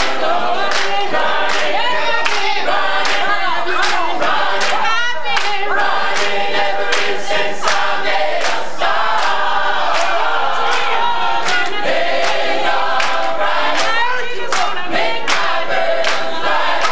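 Gospel choir singing an up-tempo song, with sharp rhythmic claps keeping time about twice a second.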